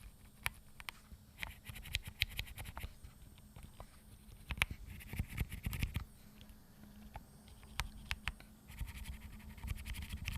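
Mechanical keyboard switches pressed repeatedly without bottoming out: many light clicks with a scratchy rubbing in the key travel. The scratch comes from Wuque grey silent tactile switches that seem never to have been lubed.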